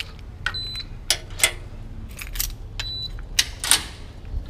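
Keys jangling on a ring with a key fob, with sharp metal clicks and clanks as a metal security gate is unlocked and pushed open. Two short high beeps sound, about half a second in and again near three seconds.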